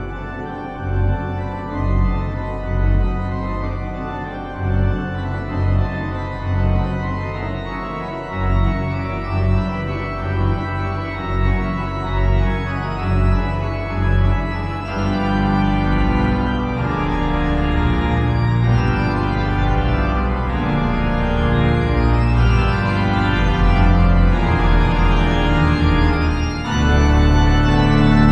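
Organ music: sustained chords over a bass line that pulses about once a second at first, the sound growing fuller and louder about halfway through and again near the end.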